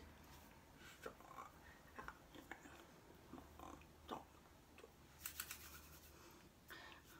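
Near silence: faint soft taps, clicks and rustles of hands and sleeves moving and touching during signing, with a quick run of clicks about five seconds in, over a faint low hum.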